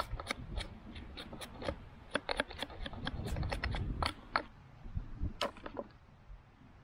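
Small hatchet chopping at the end of a wooden pole: a quick, uneven run of sharp wooden knocks, a few a second, which stops about six seconds in.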